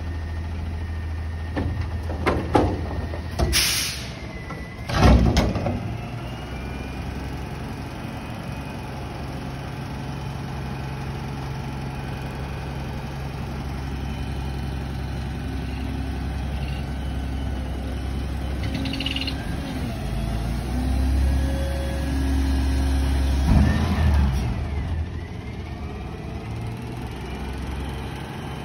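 Front-loader garbage truck's diesel engine idling while its hydraulic lift arms lower the front container, with several loud metal bangs and a short hiss in the first six seconds. The engine grows louder around 20–24 seconds as the truck pulls forward, with one more bang near the end of that stretch.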